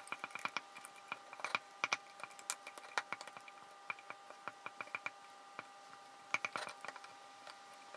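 Wooden spoon stirring freshly fed sourdough starter, a thick flour-and-water dough, in a glass jar: a quiet run of irregular clicks and taps of the spoon against the jar, with soft squishing of the dough.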